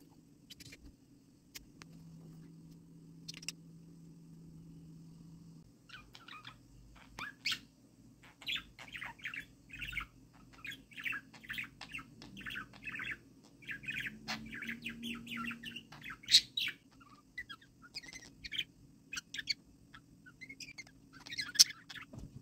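Budgerigar chirping and chattering: a few scattered chirps, then a rapid, busy run of short chirps from about six seconds in, with a couple of louder sharp calls near the end.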